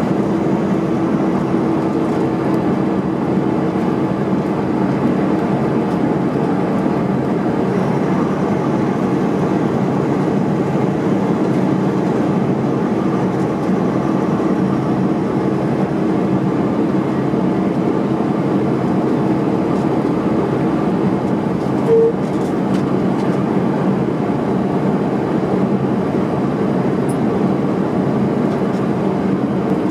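Semi truck cruising on the highway, heard from the cab: a steady drone of diesel engine and road noise with a constant low hum. A brief short tone sounds once, about three quarters of the way through.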